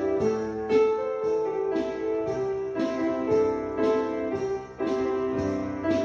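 Background music: solo piano playing a slow melody over chords, a new note or chord struck about every half second.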